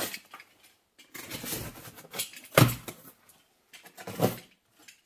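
Cardboard parcel being handled and opened: scraping and rustling noises in a few separate bursts, with a sharp knock about halfway through.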